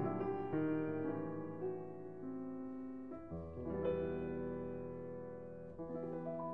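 Slow piano music, sustained chords changing every second or so.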